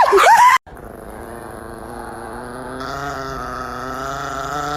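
Chihuahua snarling briefly at the start, cut off abruptly, then a chihuahua growling steadily at one low pitch for about four seconds, getting gradually louder.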